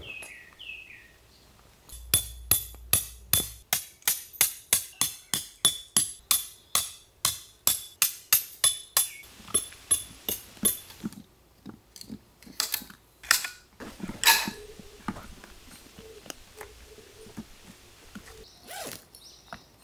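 A quick, even run of ringing metallic clinks, about three a second for some nine seconds. It is followed by a few scattered knocks and clinks.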